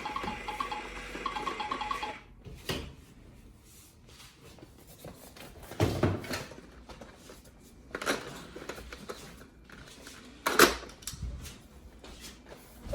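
A toddler's electronic musical toy playing a short tinkly tune that cuts off about two seconds in, then a few scattered hard plastic knocks and clatters as the toys are handled.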